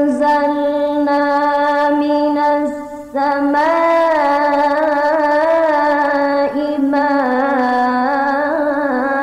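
A male Qur'an reciter's voice in melodic mujawwad recitation, holding long ornamented notes. He breaks off for a breath about three seconds in, then resumes on a higher note.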